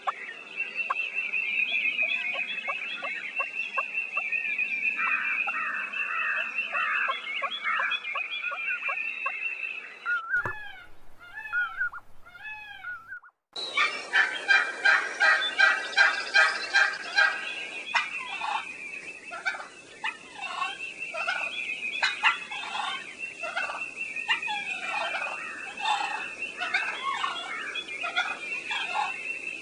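Wildlife sound-effect ambience: a chorus of many bird calls over a steady high buzz. About ten seconds in it cuts to a few separate rising-and-falling calls. A few seconds later a louder, busier chorus of calls starts abruptly and carries on.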